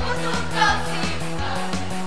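Mixed youth choir singing to a pop-style accompaniment, with a repeating bass line and drums on a steady beat.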